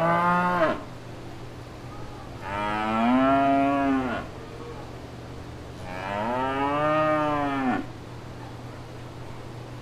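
Cows mooing: the tail of one moo ends about a second in, then two long moos of nearly two seconds each follow a few seconds apart, each rising and then falling in pitch.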